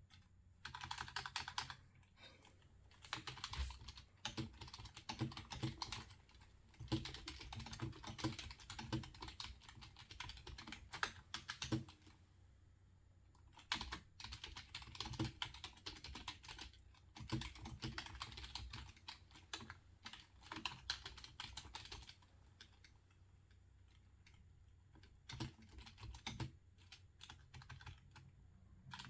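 Typing on a computer keyboard: rapid key clicks in runs of a few seconds each, broken by short pauses.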